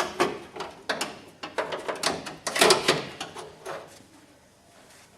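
Irregular clicks and knocks from tools and parts being handled during work on a car door latch, dying away about four seconds in.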